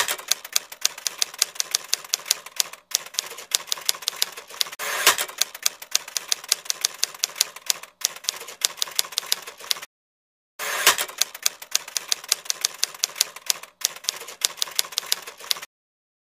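Typewriter sound effect for on-screen text being typed out: a fast, even run of keystrokes at about five a second. The runs are broken by short pauses, and there are three longer, louder strokes, near the start, about five seconds in and about eleven seconds in.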